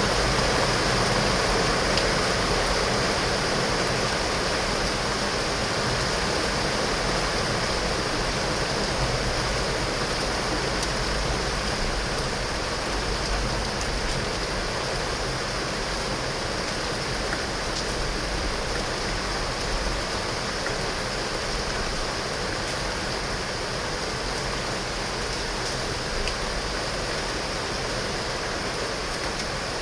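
Heavy rain falling steadily on window glass, a dense, even downpour, slowly getting quieter through the stretch.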